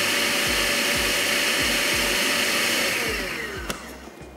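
Electric food chopper running steadily as it mixes paratha dough, a motor whine with a steady tone. About three seconds in it is switched off and its pitch falls as the motor winds down.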